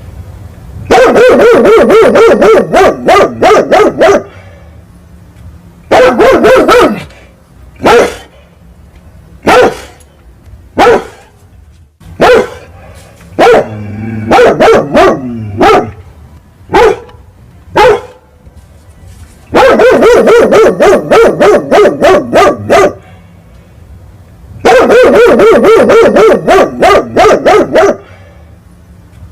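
Big dog barking angrily in rapid, loud runs of several barks a second, with single barks in between: an alarm reaction to cats fighting.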